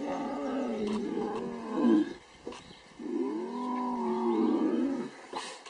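Lions calling at close quarters: two drawn-out vocal calls, the first lasting about two seconds and loudest at its end, the second, about halfway through, rising and then falling in pitch.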